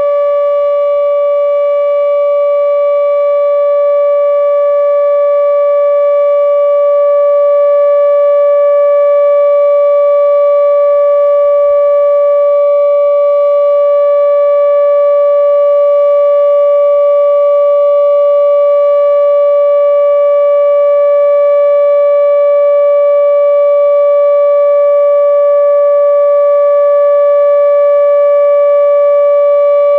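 ATI HPSS-32 electronic warning siren sounding its steady alert tone: one constant pitch with overtones and no rise or fall. It grows slightly louder over the first several seconds, then holds.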